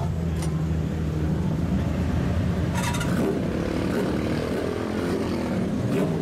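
Vehicle exhaust drone from old lowered cars pulling away at close range and a kaido-racer motorcycle idling beside them, with a brief sharp crackle about three seconds in.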